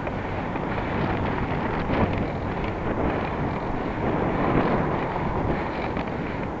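Wind rushing steadily over the microphone of a camera riding on a moving bicycle.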